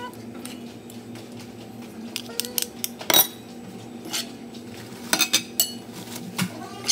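A spoon clinking and scraping against a metal pot as fried fish and sauce are served onto rice: a few sharp clinks, the loudest about three seconds in and a quick cluster about five seconds in.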